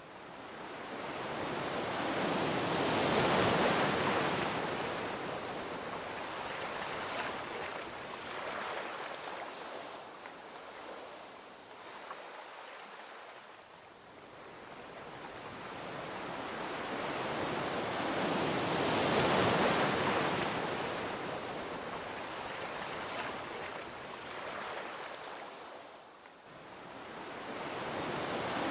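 Gentle ocean waves breaking on a beach: a hiss of surf that swells and fades slowly, with two big swells peaking a few seconds in and past the middle, and another building near the end.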